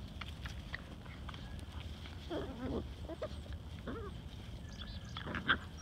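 Corgi puppies giving short, high-pitched whiny cries during rough play. A wavering cry comes about two and a half seconds in, brief falling ones near four seconds, and another just before the end.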